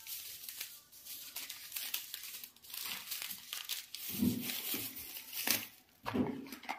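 Packaging crinkling and rustling as it is handled, in irregular crackly bursts, louder about four and six seconds in.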